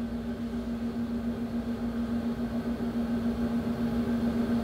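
A steady, even hum in a room, one low droning tone with a fainter higher one above it, over a faint background hiss.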